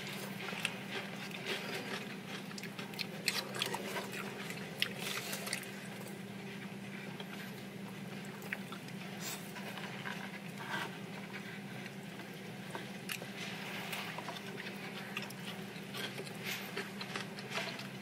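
Close-up eating sounds: chewing and mouth noises from people eating poke bowls, with scattered small clicks of chopsticks against plates. A steady low hum runs underneath.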